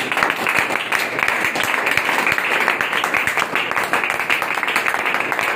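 A small group of people clapping steadily, a dense run of quick overlapping claps.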